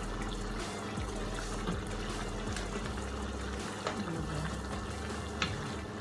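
Escabeche sauce with sliced vegetables simmering and bubbling in a frying pan while being stirred with a wooden spatula, with two light clicks, one about four seconds in and one near the end.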